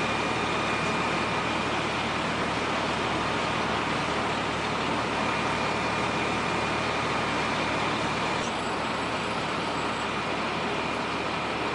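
Fire engine running steadily at the fire scene, a continuous engine-and-pump noise with faint steady whining tones. A faint high whine joins about eight seconds in.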